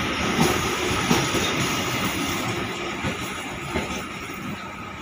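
Heritage passenger carriage rolling along the rails past and away, a steady wheel-on-rail rumble with a thin steady whine and a few sharp clicks from the wheels crossing rail joints, fading as it draws away.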